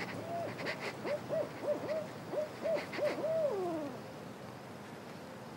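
Barred owl calling: a quick run of about eight short hoots, ending in one longer note that falls in pitch about four seconds in.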